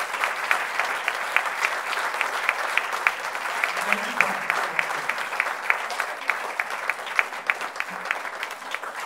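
Audience applauding: a sustained round of many hands clapping that eases off slightly near the end, with a voice briefly heard through it about four seconds in.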